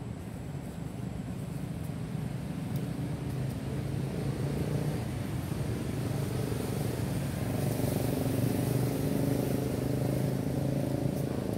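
Low, steady engine hum from a motor vehicle, growing louder over the first few seconds and then holding.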